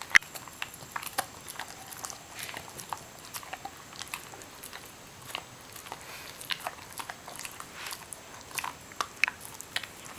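Rottweiler chewing a snack stick while lying down: irregular short clicks and smacks of its jaws and teeth, with pauses between.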